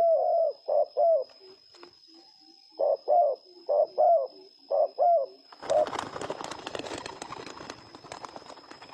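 Spotted dove cooing in repeated low phrases, a short group and then, after a pause of about a second and a half, a longer group. About five and a half seconds in, the cooing gives way to a loud, dense rustling and crackling that runs on to the end.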